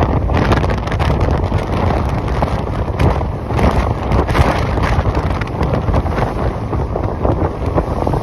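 Wind buffeting the microphone aboard a ferry under way, in uneven gusts over a low, steady rumble.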